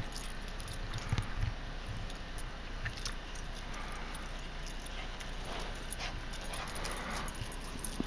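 Metal collar tags on running Labrador retrievers jingling in faint, scattered clinks that grow busier near the end, with a few low thuds about a second in.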